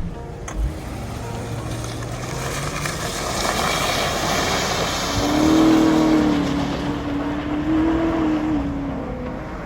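Lexus LS400's 4.0-litre 1UZ-FE V8 engine running under load while driving off-road, the revs climbing about five seconds in and holding high for several seconds before dropping back near the end.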